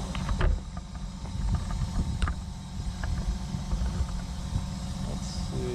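Cat 314E excavator's diesel engine running steadily, with scattered short knocks and scrapes as the ripper tooth works through hard bluestone.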